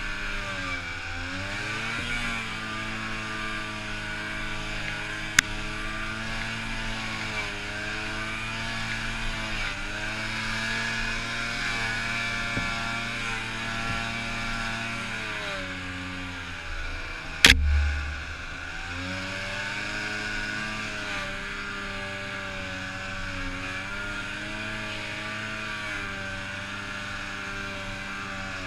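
Arctic Cat 600 two-stroke snowmobile engine running hard through deep powder, its pitch dipping and climbing again several times as the throttle is eased and reopened. A sharp click about five seconds in, and a loud thump a little past halfway, the loudest sound.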